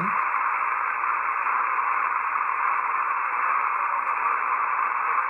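Shortwave receiver audio from an RTL-SDR v3 dongle through HDSDR, tuned to the 20-metre amateur band near 14.25 MHz: a steady static hiss of band noise with no voice or tone in it, heard with the dongle's RF auto gain switched off.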